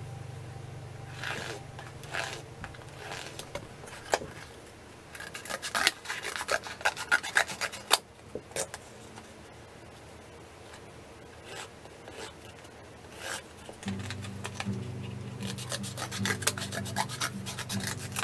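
Scissors cutting through corrugated cardboard, a rasping, crunching run of snips in two main spells of quick cuts.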